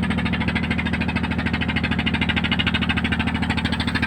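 Diesel engine aboard a bagan lift-net fishing boat running steadily, with a fast, even beat.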